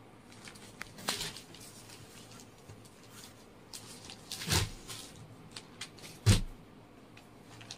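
Handling noise as sarees and blouse pieces are moved and unfolded: scattered rustles of cloth, a louder rustle about four and a half seconds in, and a sharp knock just after six seconds, the loudest sound.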